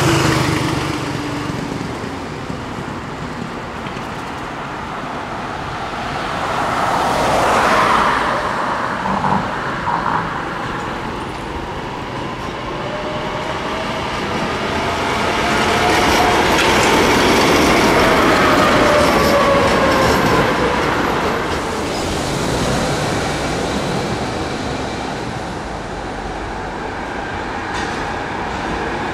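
Tatra KT4 articulated trams running along street track, their motors whining in tones that glide up and down, with road traffic behind. The sound swells as trams pass, loudest a little past the middle.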